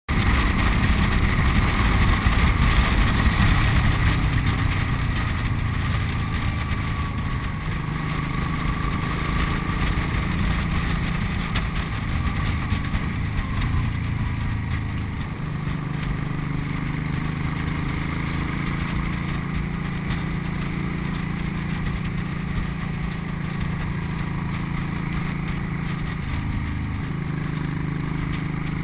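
Cruiser motorcycle riding at road speed, heard from its handlebars: a steady engine note with a rushing of wind over it, the engine's pitch stepping up or down a few times.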